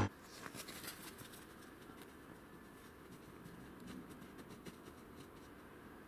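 Faint, scattered scratchy clicks and rustling over a low background hiss, a little busier in the first second and again about four seconds in.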